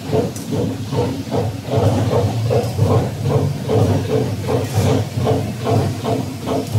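Bystronic Bysprint Pro 4020 laser cutter, retrofitted with a 6 kW fiber laser source, cutting 5 mm mild steel with oxygen assist gas: a steady hiss with a regular pulsing about four times a second.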